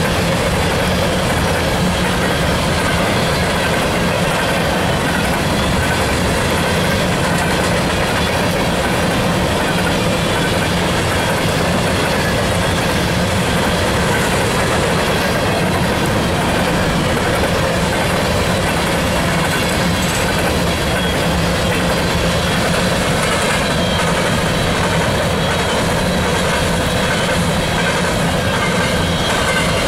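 Empty coal hopper cars of a unit freight train rolling past close by: a loud, steady noise of steel wheels running on the rails.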